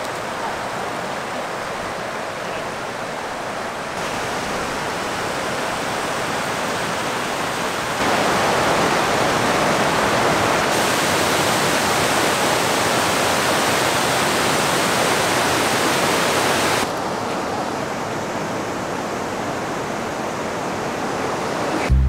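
Waterfall water rushing: a steady, even noise that jumps abruptly in loudness and brightness several times, loudest in the middle stretch.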